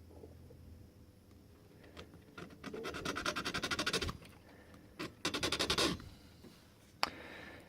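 Rapid metal-on-metal scratching strokes on a key blank, about ten a second, in two bursts: one about a second and a half long, a shorter one a second later. A single sharp click follows near the end.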